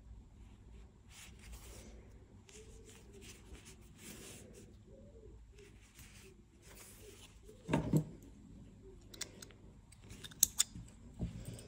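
Quiet handling of crocheted yarn: soft rustling as a needle gathers the stitches of a crocheted piece, with a soft bump about eight seconds in. Near the end come a few short, sharp snips of small scissors cutting yarn.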